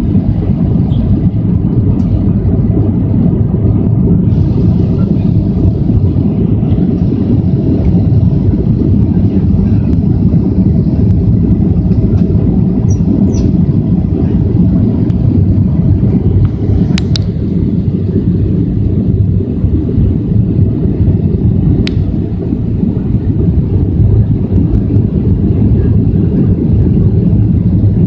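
Steady low roar of a jet airliner's engines and rushing air heard inside the passenger cabin on the approach to landing, with the flaps lowered. A couple of brief clicks partway through.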